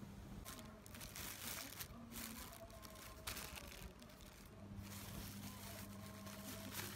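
Thin plastic bags crinkling in several short rustles as they are handled and held open.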